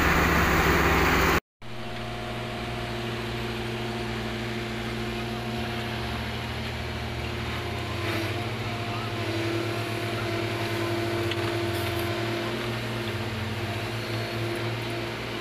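Diesel engine of heavy digging machinery running steadily at a constant pitch while its arm works to lift an overturned tractor. A loud noisy rush fills the first second and a half and cuts off abruptly before the engine hum.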